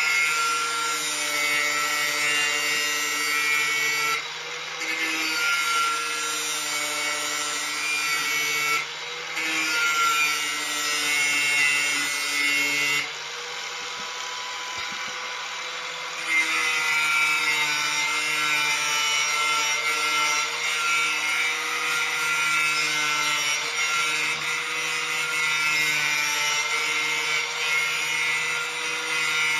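Electric angle grinder sharpening the edge of a steel lawn mower blade: a steady, harsh grinding over the running motor's hum. The grinding breaks off briefly a couple of times. For about three seconds midway it stops while the motor keeps running more quietly, then resumes.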